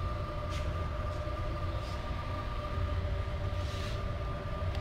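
Steady low machine rumble with a constant high hum, and a few faint brushing sounds.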